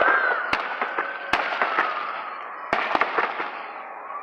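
Aerial fireworks display going off: about five sharp bangs, the last two close together near the end, over a continuous noisy wash of further bursts.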